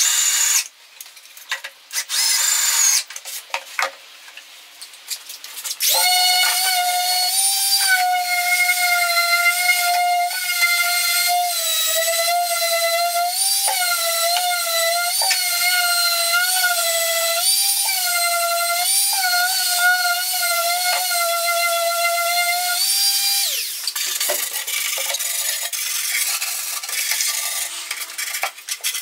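Cordless drill driving screws into OSB in short bursts. Then a handheld electric power tool runs for about seventeen seconds on the OSB panel edges, its whine dipping in pitch under load and winding down near the end. Afterwards, rubbing by hand on the wood.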